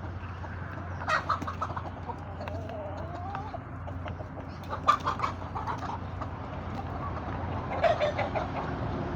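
Chickens clucking in three short bursts of quick repeated calls, over a steady low hum.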